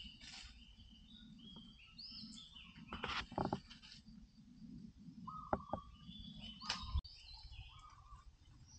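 Several birds calling with many short whistled chirps over a low steady background noise. A few sharp snaps and rustles come about three seconds in and again between five and seven seconds in.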